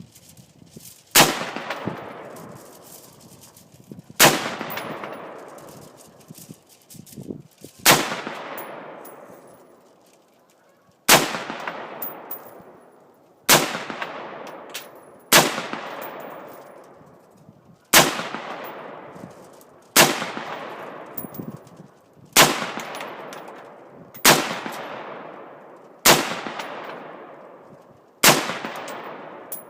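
AR-15 rifle fired in slow single shots, twelve in all, about two to three seconds apart, each crack followed by a long rolling echo.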